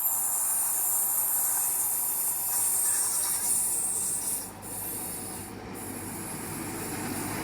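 High-speed train with Class 43 power cars pulling out, a loud high-pitched hiss over a low rumble; the hiss drops away about four and a half seconds in.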